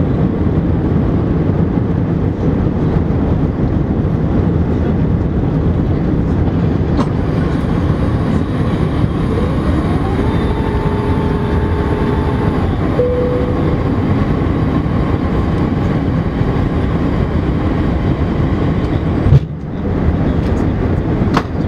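Steady cabin noise of airflow and engines inside an Airbus A380-800 on approach. Near the middle, a whine rises, holds for about three seconds and falls away; a sharp knock comes near the end.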